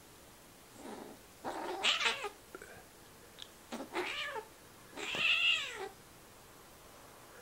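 Kittens play-fighting, one crying out in a series of whiny meows: a faint call about a second in, then three louder cries, the last about a second long and rising then falling in pitch.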